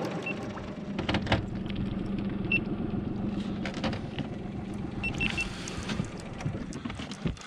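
Boat engine idling steadily, with a few light clicks and some short high beeps.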